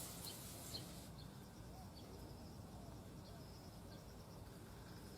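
Faint outdoor ambience: a low steady background hiss with scattered faint, short, high chirps of distant birds, and a few small clicks in the first second.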